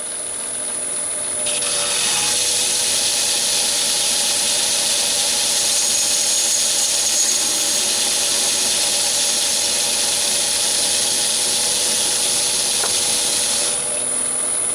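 Metal lathe running with a steady high whine, while a carbide boring bar cuts the bore of a brass plumbing fitting. The cut is a hiss that comes in about a second and a half in and stops near the end.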